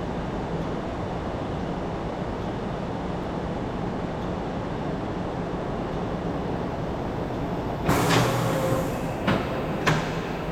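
Vehicle lift lowering a car, with a steady mechanical rumble and hum. Near the end come several sharp metallic clanks, one after another.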